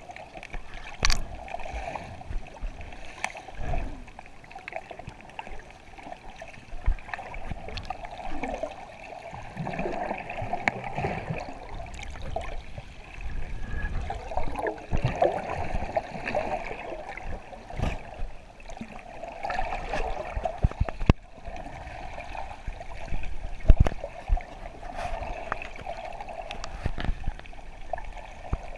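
Muffled underwater water noise heard through a GoPro's waterproof housing: irregular swirling and gurgling, with scattered sharp clicks and knocks.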